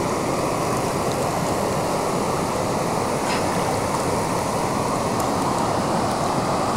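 Steady rushing of river water, an even noise that holds at one level throughout.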